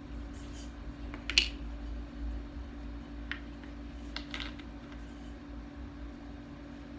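Scattered light clicks and taps from hands working kinetic sand and its plastic shaping tools, the sharpest about a second and a half in. A steady faint hum runs underneath.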